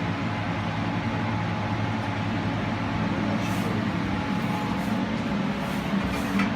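UBS-2200 drilling rig's machinery running steadily: an even engine drone.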